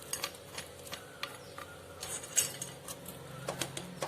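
Scattered light clicks and clinks of fried cashews and a spoon being added to a dish of fried rice.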